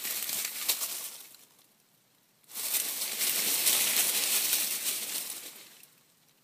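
Dry oak leaves and twigs rustling and crackling in two bursts: the first lasts about two seconds, and the second, longer one starts about two and a half seconds in.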